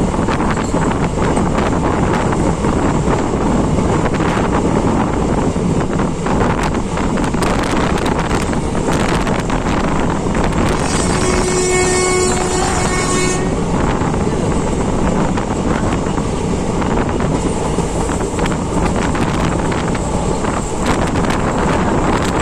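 Steady running noise of a moving train with wind buffeting the microphone. Midway, a horn sounds one steady note for about two and a half seconds.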